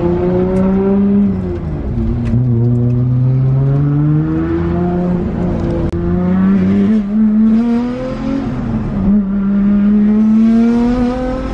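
Nissan Skyline R32 GT-R's twin-turbo inline-six heard from inside the cabin, accelerating on light throttle and shifting up through the gears: the engine pitch climbs, drops at each shift about a second and a half, six and nine seconds in, then climbs again. The driver puts its jerky light-throttle running down to a throttle position sensor that needs recalibrating.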